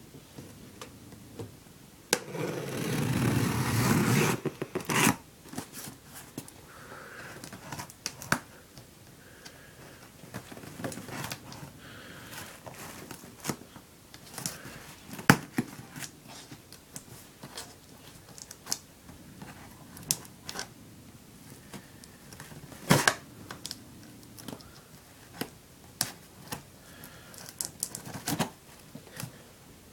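Packing tape on a cardboard box being slit with a utility knife: a long scraping cut about two seconds in, followed by scattered clicks, taps and short scrapes of the blade and fingers on the cardboard.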